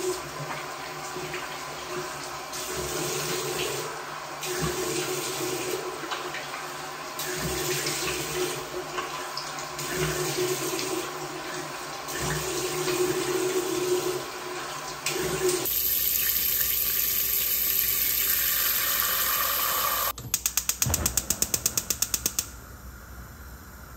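Tap water running into a bathroom sink, splashing unevenly as a face is washed. About twenty seconds in, a gas stove's igniter clicks rapidly, about five clicks a second for two seconds, before the burner lights.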